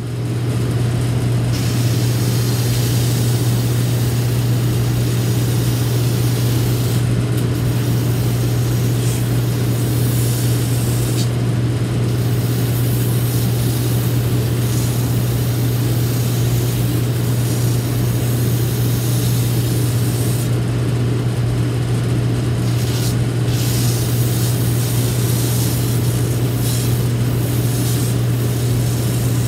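Shoe-repair finishing machine running with a steady motor hum while a freshly glued rubber heel is held against its trimming cutter and sanding wheels; the rasp of the cutting and sanding comes and goes as the shoe is pressed on and eased off.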